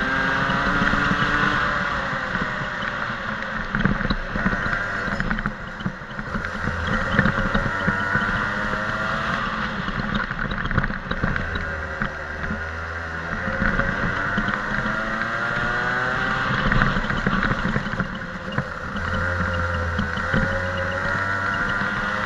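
Daytona DMAX go-kart engine heard from on board at racing speed. It revs up in long rising sweeps along the straights and drops back when the throttle lifts for corners, several times over.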